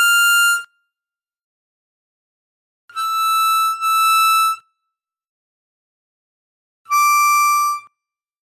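Diatonic harmonica playing single held notes of a slow melody, clear and bright with many overtones: one note at the start, the same slightly lower note played twice a few seconds later, then a lower drawn note on hole 8 near the end.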